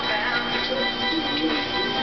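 Background music with steady sustained tones and a gliding melody.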